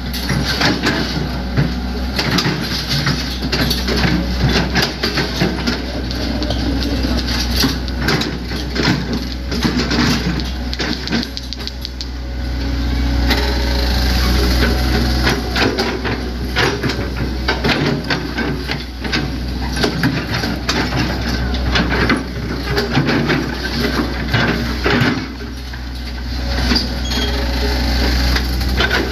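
Hitachi Zaxis 100 excavator's diesel engine running steadily under work, with frequent sharp knocks and clatter throughout. The engine swells louder for a few seconds about halfway through and again near the end.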